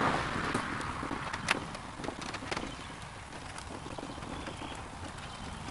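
Wind buffeting the microphone outdoors in light rain, with scattered small clicks and taps from hands working nuts onto the bolts behind a plastic truck grille, one sharper knock about a second and a half in.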